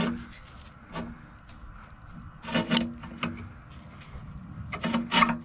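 Steel pry bar scraping and knocking against the front CV axle's inner joint and the R180 differential housing, levering to pop the axle out of the differential. It comes in several short bursts of metal-on-metal rubbing.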